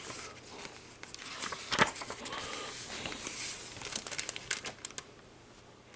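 Pages of a hardcover picture book being turned and handled: paper rustling and crinkling, with a sharp flick a little under two seconds in and a run of small crackles around four to five seconds in.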